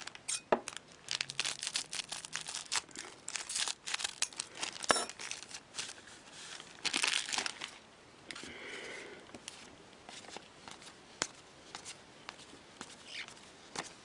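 Foil trading-card pack wrappers being torn open and crinkled by hand: quick irregular crackles, dense through the first half and sparser and quieter after.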